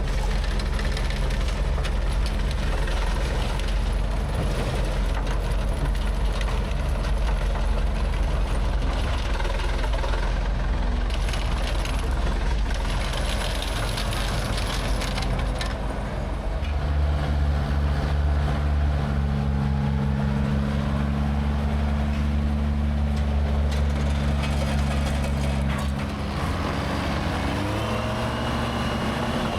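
Heavy engine of a vintage machine running steadily. Its pitch shifts about 17 seconds in and again about 26 seconds in.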